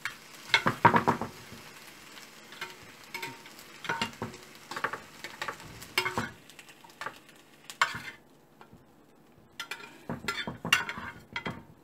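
Bacon slices sizzling in a non-stick frying pan while a metal spatula scrapes and turns them. The sizzle drops away about eight seconds in, and near the end the spatula clicks and scrapes against a steel plate as the bacon is lifted onto it.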